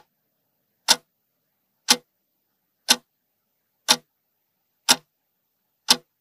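Clock-tick sound effect of a countdown timer: one sharp tick a second with silence between, marking off the time left to answer.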